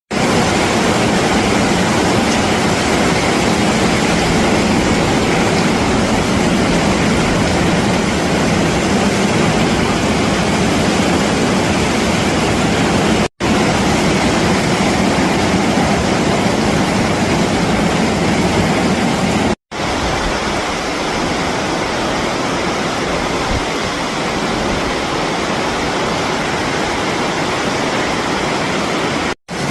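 Heavy rain pouring down in a loud, steady hiss. It cuts out abruptly three times for a split second, and is a little quieter after the second cut.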